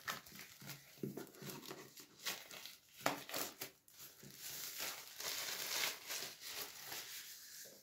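Plastic shrink-wrap crinkling and tearing as it is pulled off a cardboard box, in irregular crackles and rustles with a few sharp clicks.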